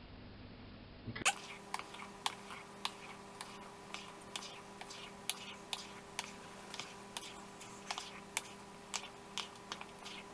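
Spoon or spatula clicking against a mixing bowl while folding whipped egg whites into a mascarpone mixture: sharp clicks about twice a second that start about a second in, over a faint steady hum.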